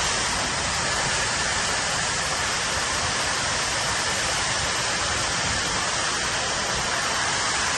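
Steady rushing of water falling inside a cooling tower, an even, unbroken hiss at a constant level.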